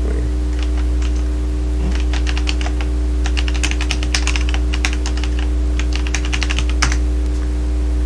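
Typing on a computer keyboard: a quick run of key clicks starting about two seconds in, ending with one sharper keystroke about seven seconds in. A steady low electrical hum runs underneath.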